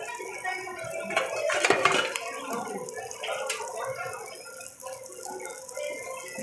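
Noodles and vegetables sizzling on a hot non-stick electric griddle, with a few clicks and scrapes of tongs and a ladle against the pan, the loudest about a second and a half in.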